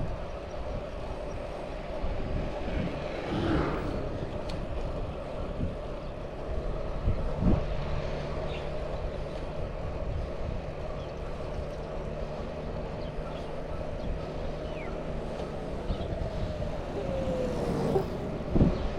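Mountain bike riding along a road, with a steady rumble of tyre and wind noise and a few knocks. Near the end a motor vehicle passes close by, its pitch dropping as it goes.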